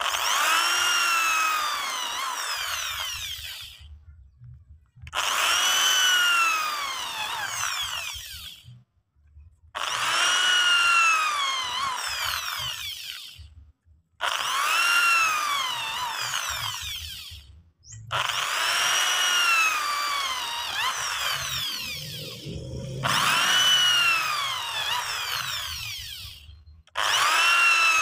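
Electric hand drill with a long spiral wood bit boring holes into a timber beam to clear a mortise. It runs in about seven bursts of three to four seconds, stopping briefly between holes. In each burst the motor whine rises, then sags as the bit bites into the wood, with a rasp of chips being cut.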